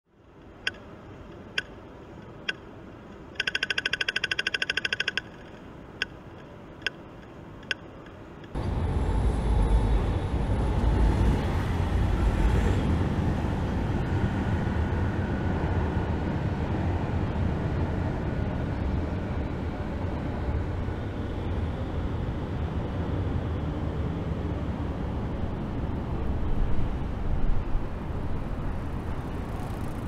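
Sharp clicks about a second apart, with a fast run of them about three and a half seconds in. From about eight and a half seconds in, city street ambience: a steady low rumble of road traffic, swelling briefly near the end.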